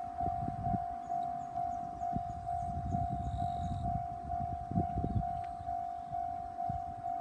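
Japanese railway level-crossing alarm ringing, a single electronic 'kan-kan' tone repeating a little over twice a second: the warning that a train is approaching. An uneven low rumble runs underneath.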